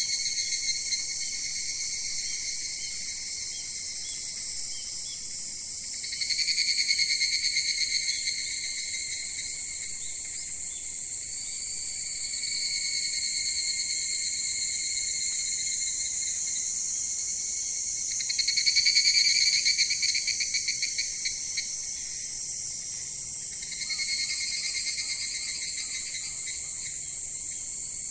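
A continuous chorus of singing insects trilling at several high pitches, swelling louder twice, about a quarter and about two-thirds of the way through.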